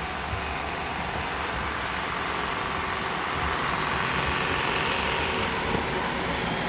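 Robot vacuum cleaners running with a steady motor whir, rising slightly in the middle.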